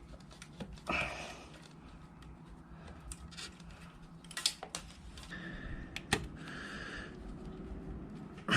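Scattered sharp clicks and light knocks of tools and parts being handled on a motorcycle, with short spells of faint rustling in between.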